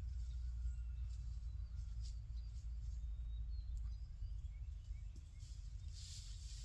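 Wind buffeting the microphone as a steady low rumble, with faint scattered bird chirps and a rustling hiss about six seconds in.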